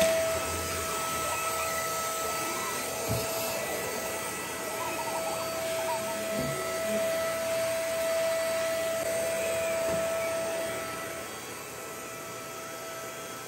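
Handheld vacuum cleaner with a crevice nozzle running steadily, sucking dust off a wooden shelf, with a steady whine over its rushing air. The sound drops in level about eleven seconds in.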